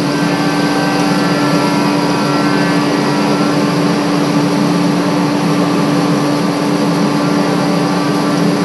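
Woodworking machinery at a furniture factory running steadily: a loud, constant hum with a hiss above it and no breaks. This is the factory noise that neighbours complain about.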